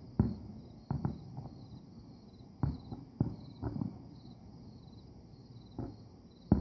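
Distant aerial firework shells bursting: about eight irregular booms and pops, some in quick pairs. Crickets chirp steadily underneath.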